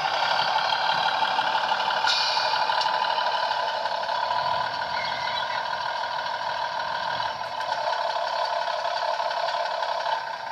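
Sound decoder in a Bachmann 00 gauge Class 150 diesel multiple unit model playing its diesel engine sound through the model's small onboard speaker, thin and without bass, as the two-car unit slows to a stop.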